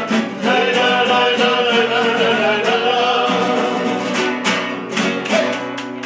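Live Spanish song played on three strummed acoustic guitars, with a man singing the melody over them. The playing eases off toward the end.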